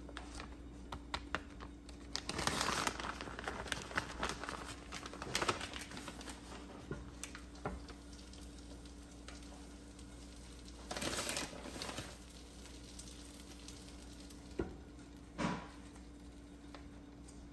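Plastic bag of shredded cheese crinkling as it is handled, with scattered small clicks. There are two short rustles, one about two seconds in and one after the middle, and two knocks near the end, over a steady low hum.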